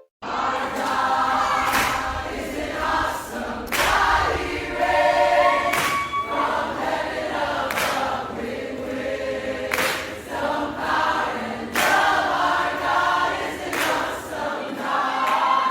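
Music: a choir singing, with a sharp beat about every two seconds.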